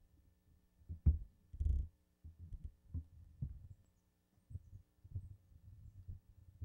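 Microphone handling noise: irregular low thumps and bumps, the two loudest about a second in and just after, over a faint steady hum from the sound system.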